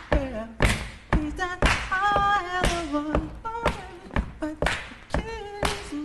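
A man singing a cappella, holding and sliding between notes, over a beat of sharp percussive hits about once a second.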